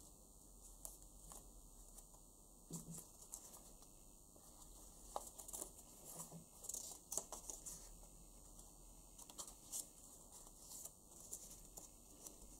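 Faint rustling and crinkling of folded craft paper being handled and pressed together, a string of small crackles that is busiest around the middle.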